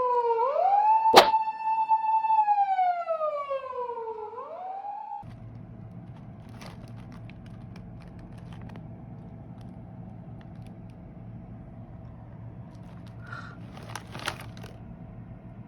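A siren-like wailing tone glides down and up several times, then cuts off abruptly about five seconds in. A steady low hum follows, with a few faint clicks near the end.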